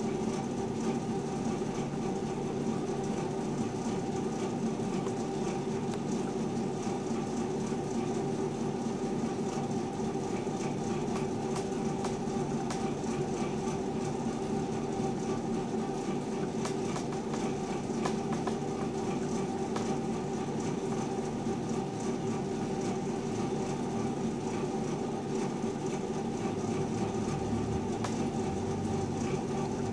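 A steady mechanical hum of several held low pitches, unchanging, with a faint hiss above it.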